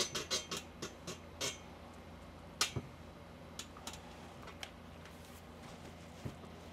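Light clicks and taps of ironing clothes, as the iron and garments are handled on the ironing board. A quick run of clicks comes first, then two sharper ones, then a few scattered ticks, over a faint steady hum.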